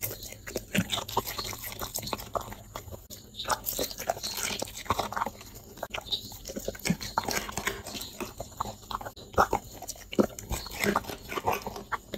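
A dog chewing and crunching hand-fed food, a quail egg and then a piece of carrot, in a quick run of sharp bites and crunches.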